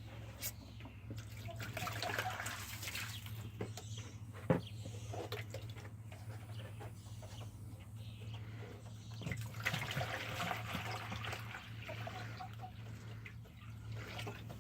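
Water being poured into a chickens' water bowl, heard as two spells of splashing with a few knocks and clinks between them; a steady low hum runs underneath.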